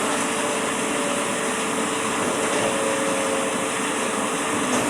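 A machine running steadily: an even rushing noise with a constant low hum, no strokes or changes in speed.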